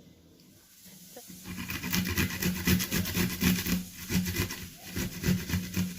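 Raw vegetables grated by hand on a grater: a run of rapid, repeated rasping strokes that starts about a second in.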